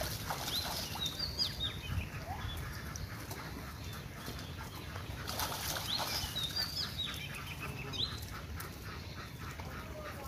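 Birds calling: quick, high, upward chirps in clusters about half a second in and again from about five to eight seconds, over a steady low background noise.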